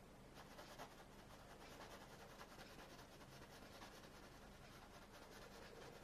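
Very faint, repeated soft scratching of a splayed synthetic paintbrush blending oil paint across a wooden panel.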